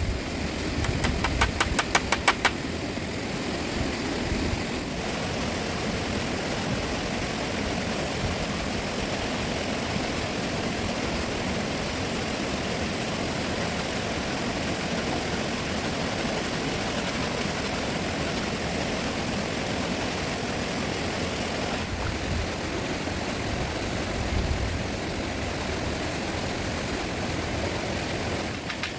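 A fast river rushing as a steady, even noise. During the first two and a half seconds, a quick regular run of sharp knocks, about four a second, sounds over it.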